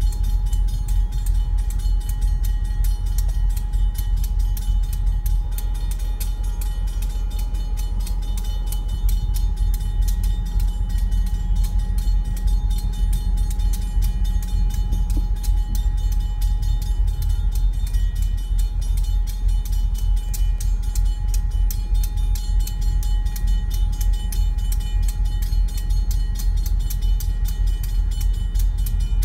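Providence & Worcester freight train's gondola cars rolling very slowly through a grade crossing with a steady low rumble, while the crossing signal's bell rings in a fast, even rhythm throughout.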